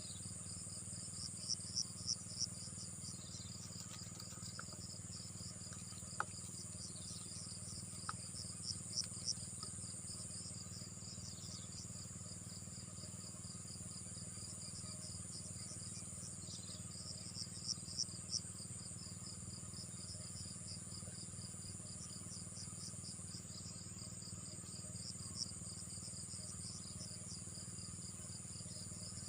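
Insects chirping in a steady high-pitched chorus of rapid trills. The trills swell louder three times: about two seconds in, around nine seconds and around eighteen seconds.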